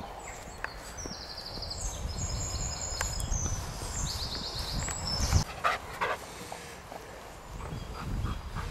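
Songbirds singing rapid high trills over a low rumble of footsteps through grass and camera handling. Two short, sharp, loud sounds come about six seconds in, and a few faint ticks near the end.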